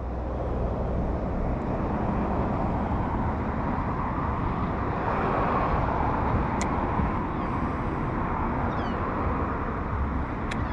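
Steady noise of road traffic, with a couple of sharp clicks and a few faint short chirps near the end.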